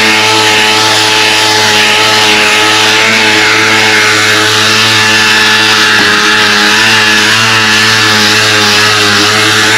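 Handheld round-pad orbital sander running steadily against a long metal tube. It makes a continuous motor hum under a loud, even hiss.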